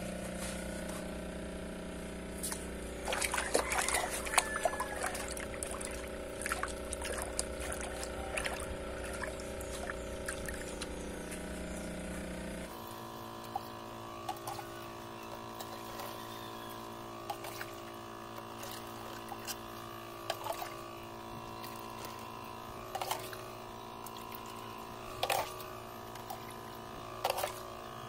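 Water sloshing and splashing in a bucket during an aquarium water change, over a steady hum. After a sudden change about halfway through, the background is quieter, with single plops of dripping water every couple of seconds.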